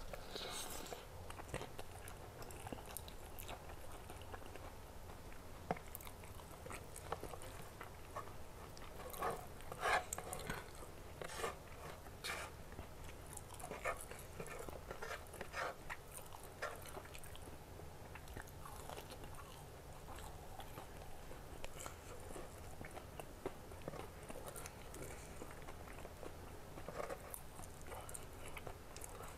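A person chewing and biting mouthfuls of spicy instant noodles and fried chicken, close to a clip-on microphone, with irregular crunches and clicks, loudest around ten seconds in.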